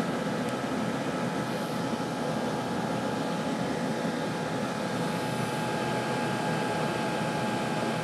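Diesel heater running: a steady rushing blower noise with a faint even motor whine, unchanging throughout.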